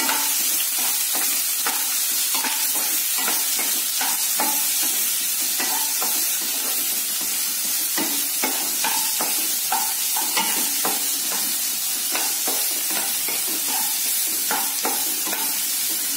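Sliced onions sizzling in hot oil in a non-stick kadai while being sautéed, stirred with a wooden spatula that scrapes across the pan in repeated irregular strokes, about one or two a second, over a steady frying hiss.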